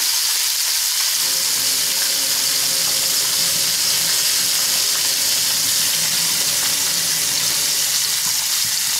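Fish frying in hot oil in a pan: a steady sizzle.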